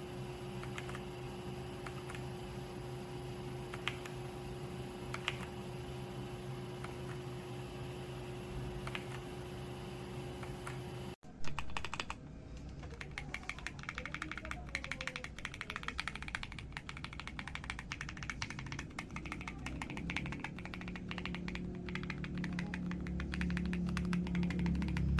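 AULA F87 mechanical keyboard being typed on. For the first ten seconds or so there are only a few scattered key clicks over a steady hum; after a cut about 11 seconds in comes fast, continuous typing, with a low sound swelling up under it near the end.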